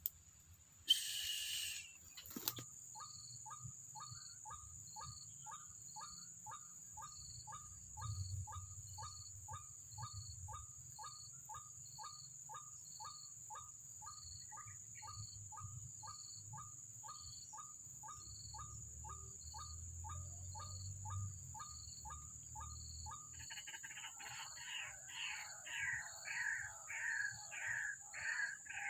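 White-breasted waterhen (ruak-ruak) calling: a long run of short, evenly repeated notes about two a second. About 23 seconds in, louder, harsher 'ruak-ruak' calls take over. Near the start, a brief rustle and knock of the camera being handled is the loudest sound.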